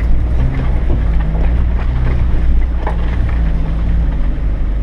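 GAZelle van engine pulling slowly in first gear over a rutted dirt road: a steady low drone, with a couple of short knocks from the vehicle jolting over the ruts.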